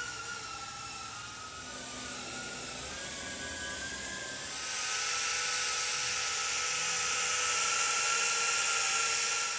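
AIR PIX pocket selfie drone's four small propellers whining in flight, the pitch wavering during the first half, then louder and steadier from about halfway through.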